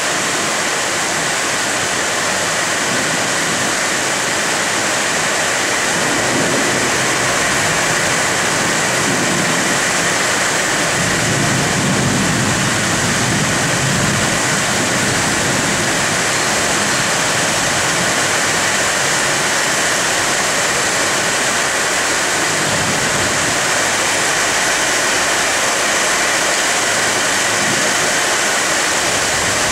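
Heavy rain falling steadily on leafy trees, an even hiss. A low rumble swells in about a fifth of the way through, is strongest near the middle and fades, and comes back more faintly later.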